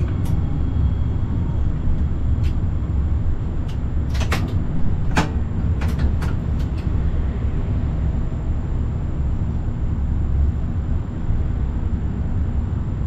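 Forchbahn electric suburban train running, heard from the driver's cab: a steady low rumble, with a run of sharp clicks and knocks about four to seven seconds in.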